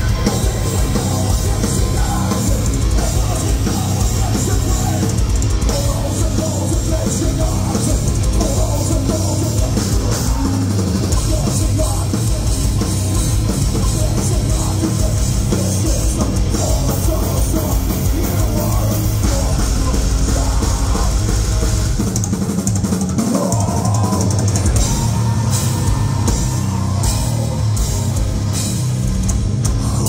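Heavy metal band playing live at high volume: distorted electric guitars, bass and a pounding drum kit.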